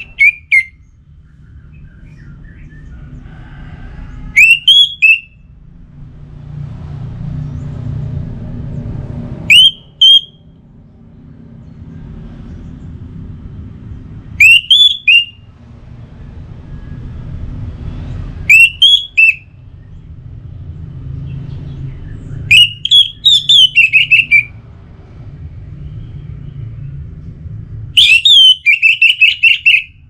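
Orange-headed thrush (anis merah) singing loud, short whistled phrases of rising and falling notes, one phrase every four to five seconds. Near the end the phrases grow longer and finish in a quick run of repeated notes.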